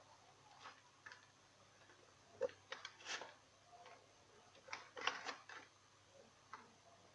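Almonds being broken into small pieces with a fork: scattered sharp clicks and cracks, bunched in two clusters about two and a half and five seconds in.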